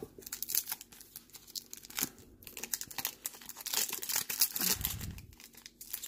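Trading-card pack wrapper crinkling and tearing as a new pack is ripped open, with the crackle coming in uneven flurries.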